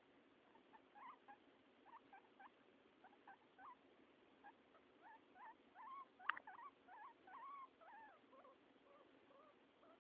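Pet guinea pig making a run of short, soft squeaks, busiest in the middle, with a single sharp click about six seconds in.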